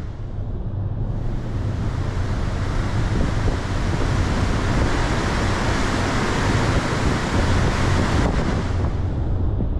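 Steady rush of wind and sea noise along the open promenade deck of a cruise ship under way, with wind buffeting the microphone.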